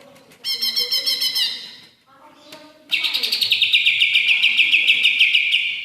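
Leafbird (cucak ijo) song, a bait recording for setting a silent bird singing: a short burst of rapid, high repeated notes about half a second in, then from about three seconds a long, fast, loud trill.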